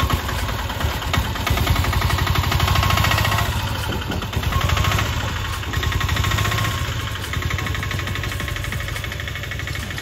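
Engine of a small Piaggio goods truck running with a rapid, even clatter as it pulls away loaded, growing fainter over the last few seconds.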